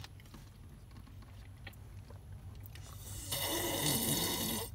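Water sloshing and gulping as a plastic bottle of water is tipped up and drunk from. It starts about three seconds in, is the loudest sound here, and cuts off sharply at the end. Before it there are only faint clicks over a low steady hum.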